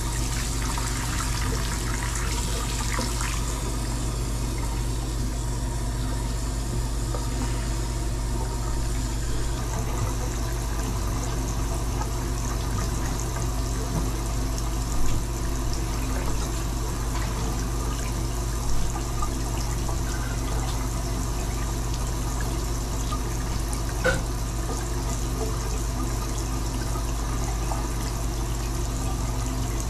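Water running steadily in a bathtub, with a low steady hum underneath and a few short clicks partway through.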